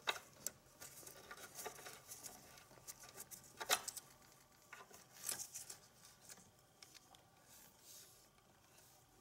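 Faint, scattered clicks and rustles of a gloved hand working the throttle cable and its bracket on the throttle body. The sharpest clicks come just under four seconds and just over five seconds in, and the handling sounds thin out after about six seconds.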